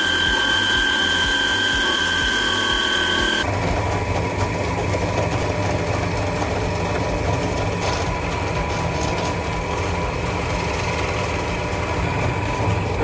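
Bench belt-and-disc sander running with a steady whine as a plywood piece is held against its disc. About three and a half seconds in the sound changes abruptly to a benchtop drill press running, its bit boring into laminated plywood.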